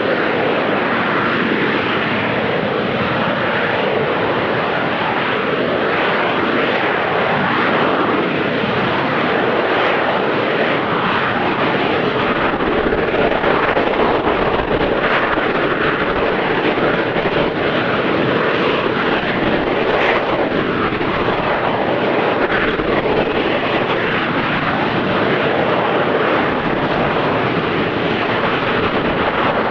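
AV-8B Harrier II's Rolls-Royce Pegasus vectored-thrust turbofan running at hover power, a loud, steady jet noise as the jet hovers and flies backwards.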